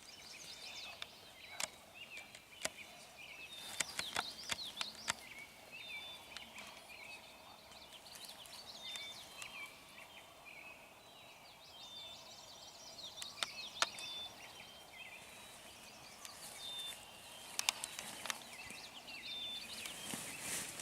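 Faint, varied chirping of small birds singing in the background, with scattered sharp clicks and rustles over a quiet outdoor hiss.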